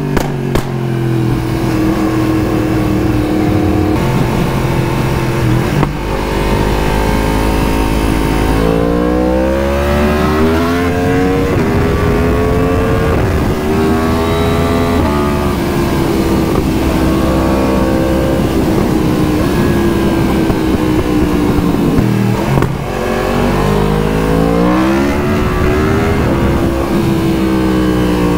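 Yamaha MT-10's crossplane inline-four through an Akrapovic exhaust while riding: the engine pulls up through the revs several times, its pitch rising and then dropping back at each gear change, with steadier cruising stretches between. A few sharp pops near the start.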